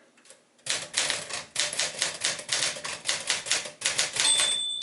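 1965 Smith-Corona Sterling manual typewriter being typed on: a quick run of sharp key strikes. Near the end a high, clear ring begins and carries on, fading slowly, the typewriter's bell.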